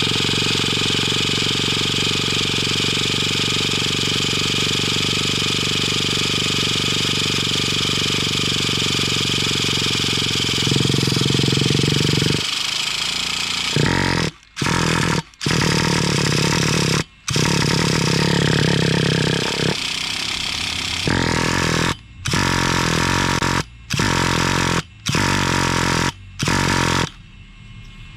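Electric starter box spinning the Traxxas Revo's 3.3 nitro engine: one long cranking run of about twelve seconds, then a series of shorter bursts with brief pauses between them. The engine is reluctant to catch on its first start.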